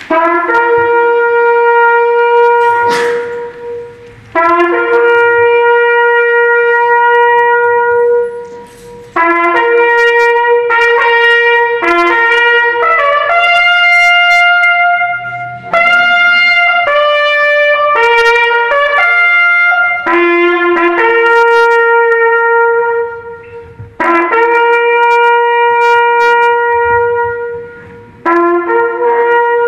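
A French military bugle (clairon) sounding a slow ceremonial call: long held notes in phrases, each broken off by a short pause for breath.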